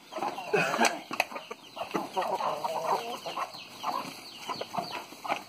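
A flock of chickens and roosters clucking busily while they feed, with many short overlapping calls and a few sharp pecks or scuffles.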